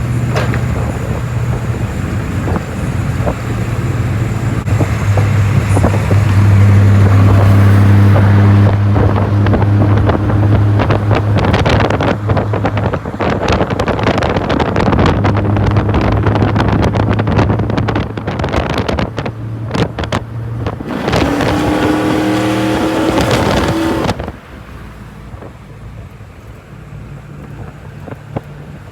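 Pickup truck engine running while driving, with wind and road noise. About 21 seconds in, the engine pitch climbs for a few seconds; then the sound drops off sharply and stays much quieter.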